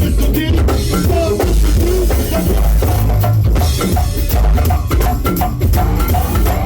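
Go-go band music: a drum kit and percussion keep a steady, driving groove over a deep bass.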